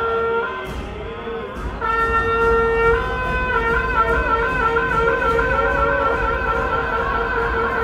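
Music with long held notes, some wavering, over a light regular beat of clicks.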